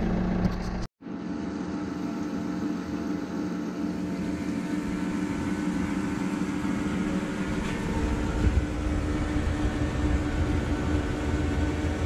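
Tractor engine running at a steady speed. About a second in the sound cuts out abruptly, then resumes as a different steady engine note.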